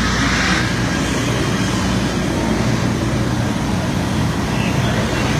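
Fire trucks' diesel engines running steadily, with a brief hiss in the first half second.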